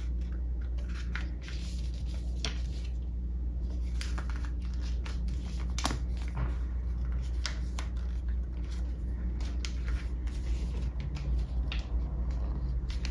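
A sheet of coloured paper being folded and creased by hand: scattered short, crisp rustles over a steady low hum.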